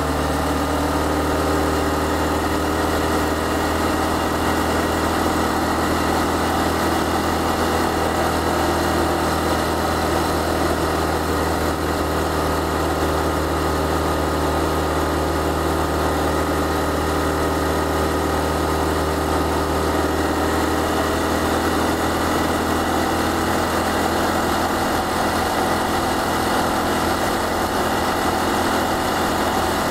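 Honda Cross Cub's single-cylinder four-stroke engine running steadily as the motorcycle cruises along a road, heard from the rider's seat, with a slight change in its note about twenty seconds in.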